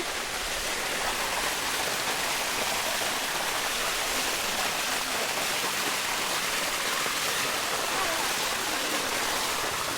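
Water of the Bua Tong waterfall rushing steadily over the rock, a constant even roar of falling water.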